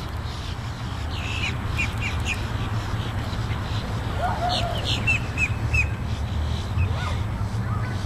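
Birds calling: two runs of short, quick high notes, one about a second in and another around five seconds, with a lower call just before the second run, over a steady low rumble.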